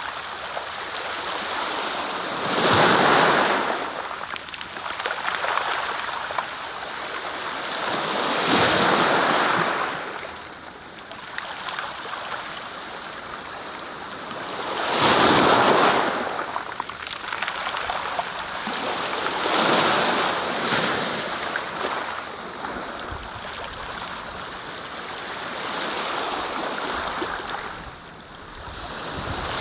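Sea waves breaking: a rushing noise that swells and ebbs every five or six seconds.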